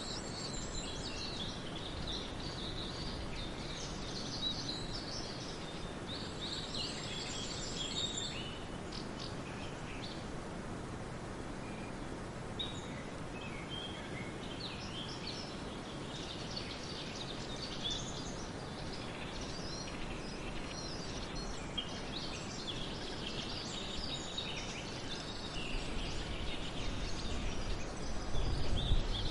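Several birds chirping and calling, with short high trills, over steady background noise. A low rumble grows louder near the end.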